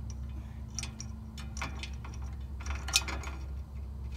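Irregular sharp metal clicks and clinks from hand work on wire-rope cable clamps on a sawmill's steel feed cable, the loudest about three seconds in, over a steady low hum.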